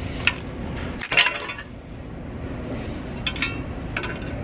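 Sharp metallic clinks of a screwdriver and steel clutch pedal bracket parts being handled, four short clinks with the loudest about a second in, over a steady background noise.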